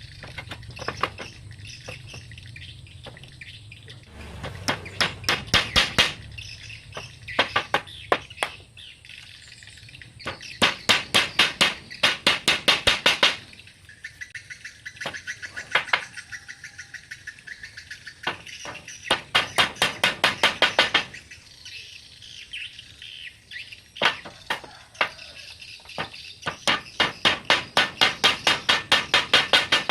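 A bird calling in loud runs of rapid, evenly spaced high chirps, about four or five a second. Each run lasts one to three seconds and repeats again and again with short pauses between.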